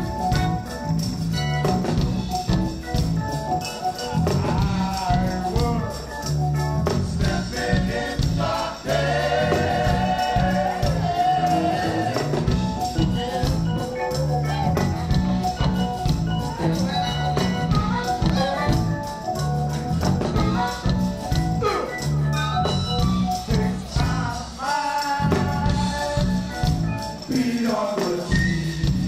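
Live funk band jamming: bass line and drums with percussion underneath, electric guitar, and wavering lead lines from a saxophone and a harmonica, with some singing.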